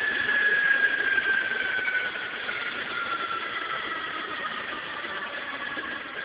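Abbott & Ashby 8-inch bench grinder with a linisher belt arm winding down after switch-off: a high whine falling steadily in pitch over a rushing noise, getting quieter as it coasts to a stop.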